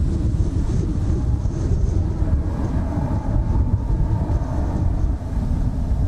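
Mitsubishi F-2 fighter jets taxiing, with UH-60J helicopter rotors turning, heard as a steady low rumble heavily buffeted by strong wind on the microphone. A higher engine whine comes in about two and a half seconds in and fades near the end.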